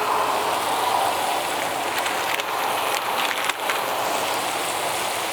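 Beef smashburger patties and onions sizzling steadily on a hot Weber Crafted griddle, with scattered small pops of fat.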